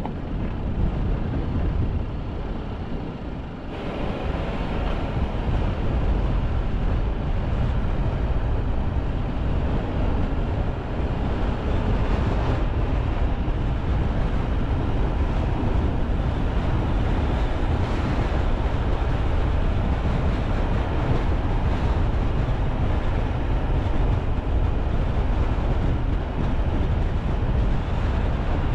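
A car driving along a road: steady road and engine rumble, a little quieter at first and louder from about four seconds in.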